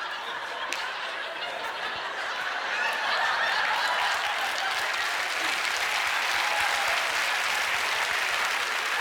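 Studio audience laughing and applauding, swelling louder about three seconds in.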